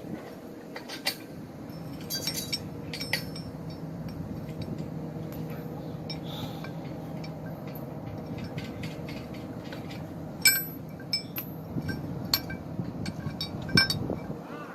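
Metal tent-frame parts clinking and clanking as they are handled during assembly: scattered sharp, ringing clinks, a cluster about two seconds in and more near the end, over a steady low hum.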